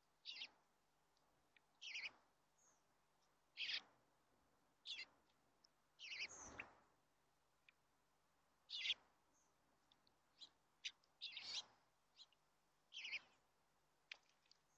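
Young bluebirds calling: about ten short, high calls spaced a second or two apart, with one longer, noisier burst about six seconds in.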